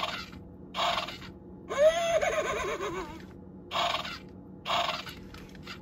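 Animated toy horse's sound chip playing a recorded horse whinny through its small speaker, one wavering call that rises then falls, a couple of seconds in. Short breathy bursts come twice before it and twice after it.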